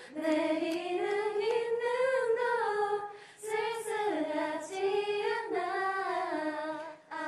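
A woman singing unaccompanied in long, smoothly gliding notes, with a short breath pause about three seconds in.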